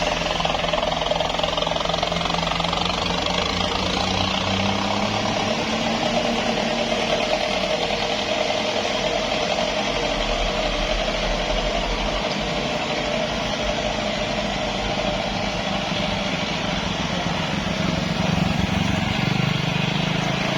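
Heavy vehicle's engine running steadily, its low pitch shifting a little as it goes, then cut off suddenly at the end.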